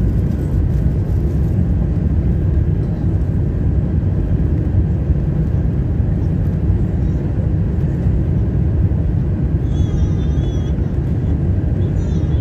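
Steady low rumble of an airliner's jet engines and cabin heard from inside the passenger cabin, with no build-up in level. A brief high warbling tone sounds about ten seconds in.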